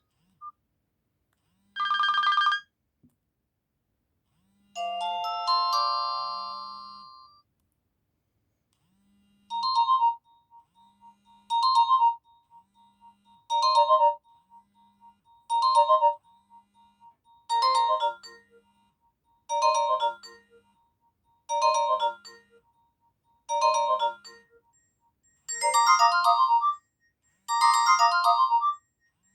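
Nokia 225 mobile phone ringtones playing: a short chime, then a brief melodic phrase that dies away, then a ringtone whose short melodic phrase repeats about every two seconds and grows fuller near the end.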